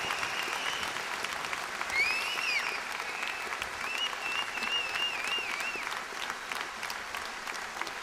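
Audience applauding, with whistles over the clapping: a held whistle at the start, a rising and falling whistle about two seconds in, and a warbling whistle from about four to six seconds in.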